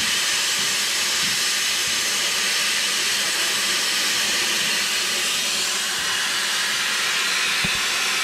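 Oxy-fuel cutting torch hissing steadily as it cuts through steel.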